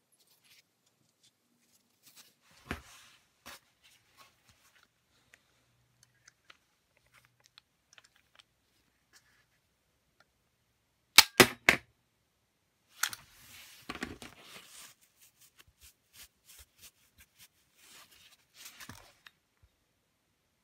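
Hand pop rivet tool setting pop rivets into a steel hole puncher body: three sharp loud snaps in quick succession about eleven seconds in as the tool is squeezed and the rivet is pulled tight. Around it come scattered small clicks and clattering as the metal parts and tool are handled.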